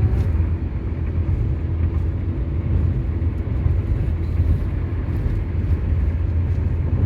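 Steady road noise inside a moving car's cabin at highway speed: a low rumble of tyres and engine with a faint hiss above it.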